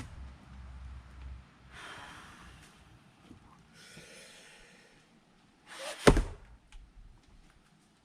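Two heavy breaths, about two and four seconds in, then a single sharp axe strike into a log about six seconds in, the loudest sound, followed by a few faint knocks of wood.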